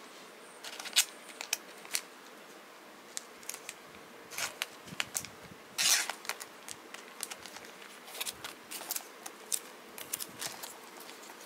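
Trading cards and plastic card sleeves being handled, with one card slid into a sleeve: scattered light clicks, crinkles and a few short scrapes.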